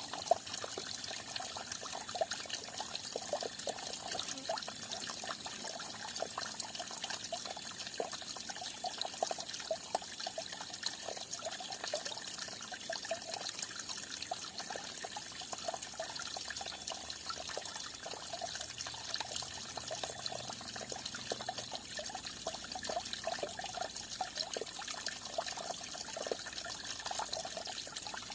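Falling water trickling and splashing steadily, a dense, unbroken patter of small splashes.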